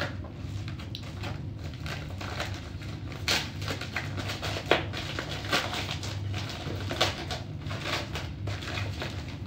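Plastic poly mailer bag crinkling and rustling as it is torn open by hand, in a handful of short sharp crackles over a steady low hum.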